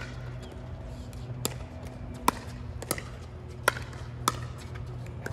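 Pickleball rally: five sharp pops of paddles striking the hard plastic ball, coming about every half second to a second and a half.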